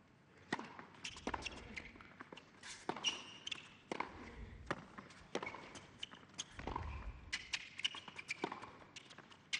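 Tennis rally: the serve is struck about half a second in, then racket hits and ball bounces come roughly once a second, with short squeaks of shoes on the hard court between them.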